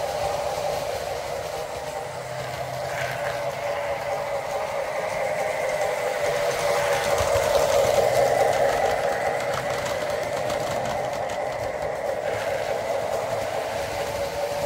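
Lionel O gauge Union Pacific diesel and freight cars running on three-rail tubular track: a steady motor drone and wheel-on-rail clatter that grows loudest about halfway through as the train passes close by, then eases off.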